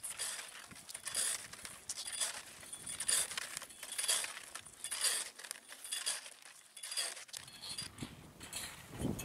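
Ski-touring skis and poles scraping on firm snow as skiers climb uphill on skins, a rhythmic stride about once a second.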